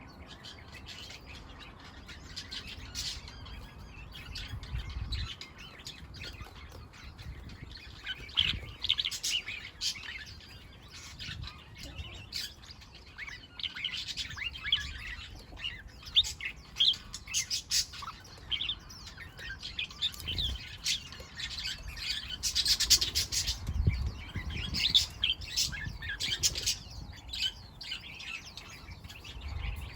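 Songbirds chirping and twittering in quick, short, overlapping calls, busiest through the middle of the stretch.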